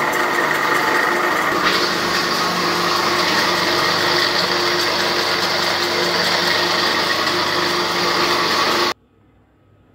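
Small electric flat-die feed pellet mill running with ground starter feed in it: a loud, steady mechanical whir with a hum. It turns brighter and harsher about two seconds in and stops abruptly near the end.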